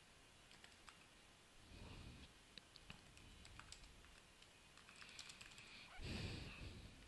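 Faint typing on a computer keyboard: scattered single keystrokes at an uneven pace. A soft whoosh of noise comes about six seconds in.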